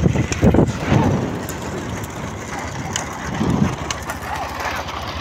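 Wind and road rumble on a camera moving with racing horse carts, with irregular knocks in the first second and a few brief shouts later on.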